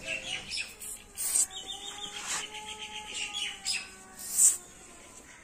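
Birds chirping, with a quick trill about two seconds in, while a herbal pump spray is squirted onto a dog's maggot-infested paw wound in a few short bursts, the loudest near the end.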